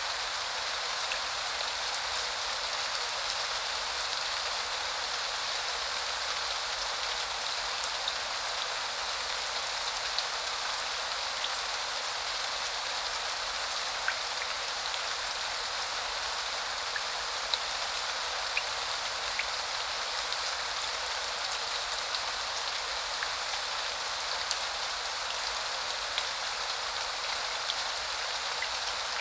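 Rain falling steadily: an even hiss of rain with scattered sharper ticks of single drops striking a surface close by.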